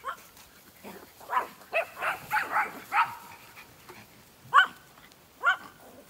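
Small dog barking: a quick run of about six short, high barks, then two more spaced out near the end, the second to last the loudest.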